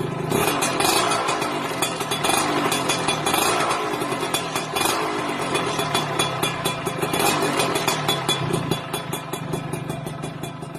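Yamaha F1ZR two-stroke single-cylinder underbone motorcycle running through its exhaust (kenalpot), with a fast crackling beat and the revs rising and falling. The sound fades away near the end.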